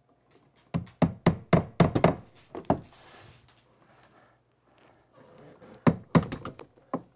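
Hammer striking wood in two quick runs of blows: a rapid series in the first few seconds, a pause, then another rapid series near the end.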